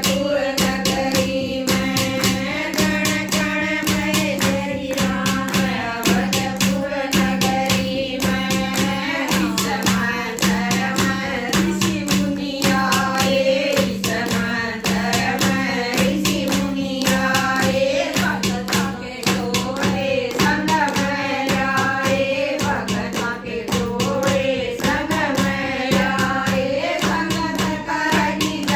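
Women singing a Haryanvi devotional bhajan together, keeping a steady fast beat with hand claps.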